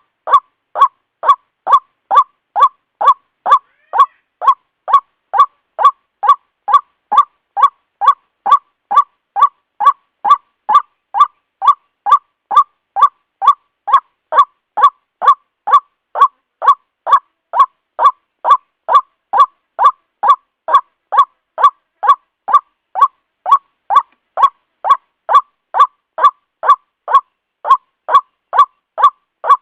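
White-breasted waterhen (ruak-ruak) call: one short note repeated at a perfectly even pace, about twice a second.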